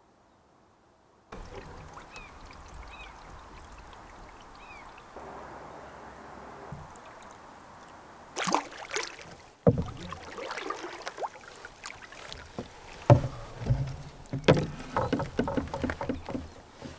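Water and gear sounds from an Old Town Penobscot 16 Royalex canoe on a lake, starting with a steady lapping hiss. From about halfway in come a run of loud splashes and knocks in the water and against the hull.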